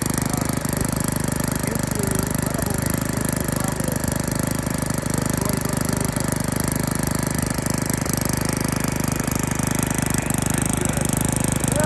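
Troy-Bilt Bronco tiller's small single-cylinder engine running steadily with a rapid, even firing, with no popping back.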